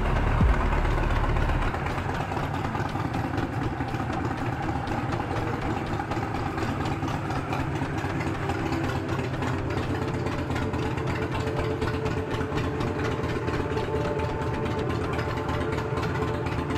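Motorcycle engines running as bikes ride slowly around and past close by. A deep low rumble drops away about two seconds in.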